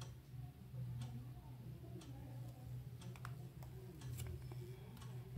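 Quiet room tone: a steady low hum with a few faint, scattered light ticks.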